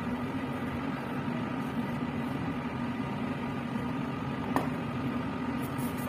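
Steady blower hum and airflow of a laminar air flow cabinet running, with one sharp click about four and a half seconds in.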